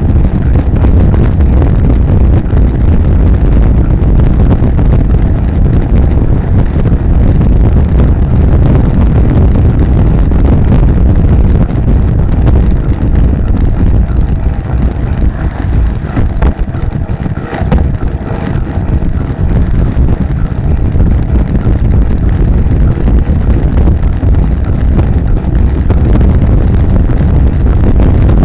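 Wind buffeting the microphone of a camera on a bicycle moving fast along a road: a loud, steady, low rumble that eases slightly for a moment just past the middle.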